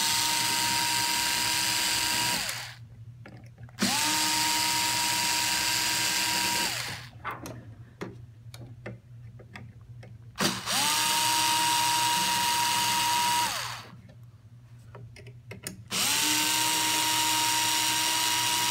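Ryobi cordless drill with a 2 mm hex bit backing the pump-housing screws out, in four runs of about three seconds each. Each time the motor whine rises as it spins up, holds steady, then falls away as it stops. Light clicks and taps of handling come between the runs.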